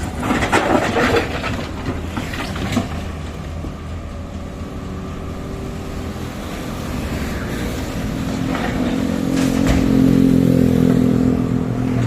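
Heavy vehicle engine running, with a few knocks and clatter in the first couple of seconds. About eight seconds in, the engine revs up and grows louder, holding a steady higher note to the end.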